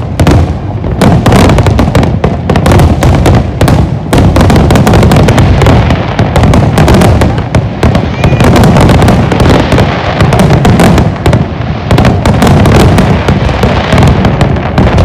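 Large aerial fireworks display: a dense, continuous barrage of shell bursts and crackle, very loud, with a heavy low rumble underneath.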